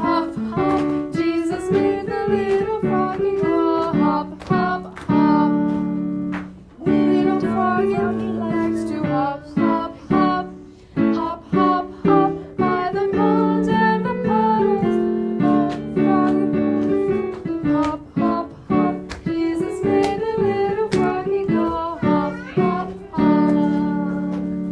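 Music: a children's song sung over a plucked-string accompaniment.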